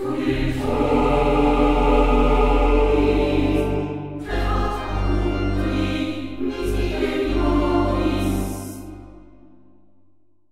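Background music with choir-like singing, fading out near the end.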